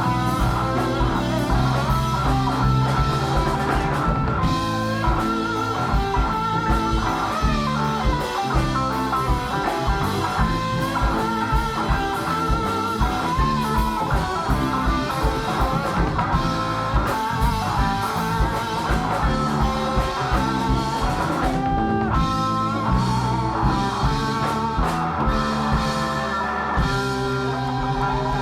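Blues-rock band playing an instrumental passage with no vocals: a guitar lead of bending, wavering notes over bass and drums.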